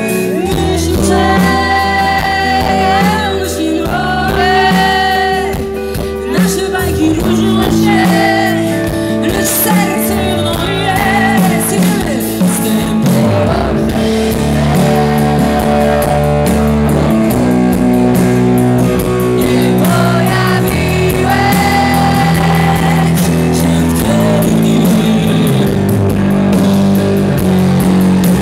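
Live rock band playing loud over a concert PA: a lead singer over electric guitar, bass and drums.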